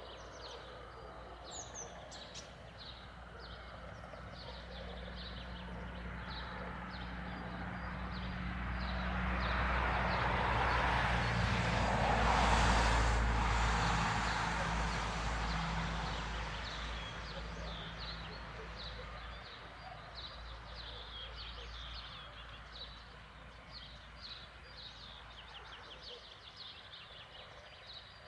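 An engine passes by, swelling slowly to its loudest about halfway through, then fading away, while small birds keep chirping in the background.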